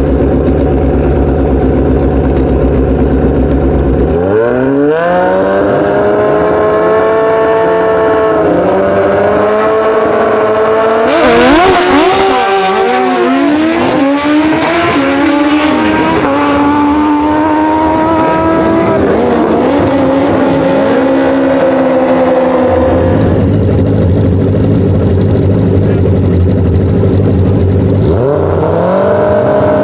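Two drag-racing superbikes idling at the line, then launching about four seconds in and accelerating hard, engine pitch climbing in steps as they shift up, before the sound falls away and fades as they run down the strip. Another pair of sport bikes then idles at the line, with one revving up near the end.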